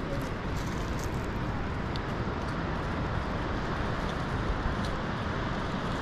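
Steady rushing of a fast river over rocks, an even wash of water noise with a few faint ticks on top.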